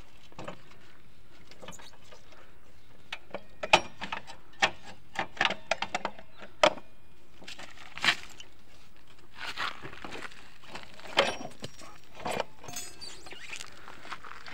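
Irregular metallic clicks and clunks, about a dozen, as the rear wheel of a Honda CB Unicorn is rocked and slid out of the swingarm and brake panel with its axle removed. The loudest knocks come about 4 s and 8 s in, and again about 11 s in.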